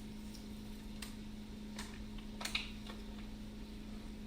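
A few faint clicks and taps of kitchen utensils and containers, one each about one, two and two and a half seconds in, over a steady low hum.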